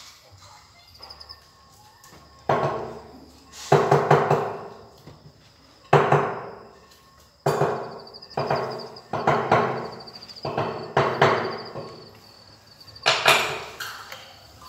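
A hammer knocking floor tiles down into their mortar bed, setting them level: about a dozen sharp knocks in irregular groups, each ringing briefly.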